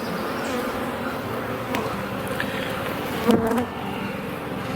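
Honeybees buzzing in a steady, dense hum around an open hive as frames are inspected, briefly louder a little over three seconds in.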